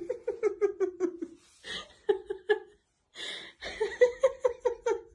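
A person laughing hard in high-pitched ha-ha bursts, about seven a second, in several runs broken by quick gasping breaths.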